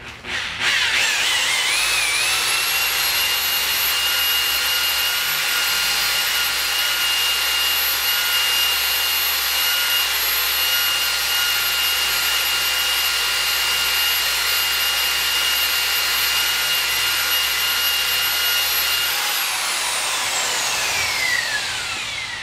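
Makita rotary polisher with a wool pad running on car paint. The motor spins up about half a second in to a steady high whine over the rush of the pad, then winds down with a falling whine over the last three seconds.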